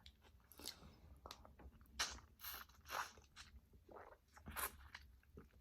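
Faint chewing and mouth sounds of someone eating, a string of short, irregular smacks and squishes.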